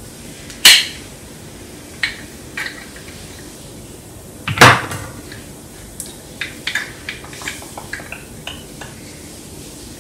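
A small handheld knife sharpener being handled and fiddled with: two sharp knocks about a second apart from the start and near the middle, then a run of small plastic clicks. Its owner thinks he may have broken it.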